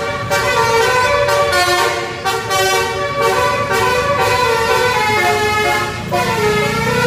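Tour bus's basuri musical horn playing a tune: a string of loud held notes, the pitch stepping from one note to the next. A vehicle engine rumbles underneath.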